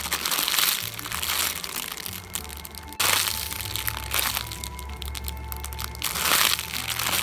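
Clear plastic bag crinkling as a bread-loaf squishy toy is squeezed inside it. There are several bouts: the longest near the start, a short one about three seconds in and another around six seconds. Background music plays underneath.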